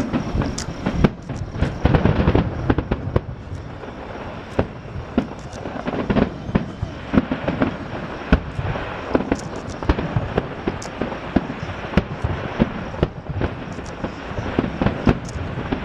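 Fireworks display: a dense, irregular run of aerial shells bursting and crackling, with many sharp cracks over a steady low rumble.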